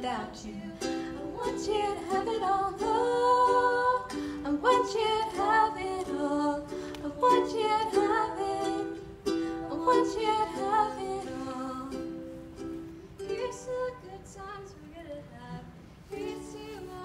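Ukulele strumming chords in a song's instrumental passage, growing quieter over the last few seconds.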